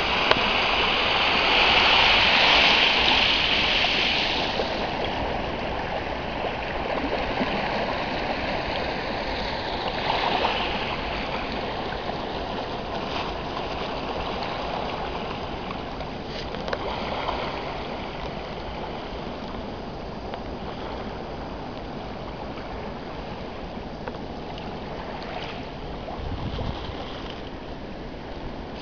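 Rhine river waves breaking and washing onto a gravel bank, a steady splashing wash. It is loudest in the first few seconds, then settles to a softer wash with a few smaller surges.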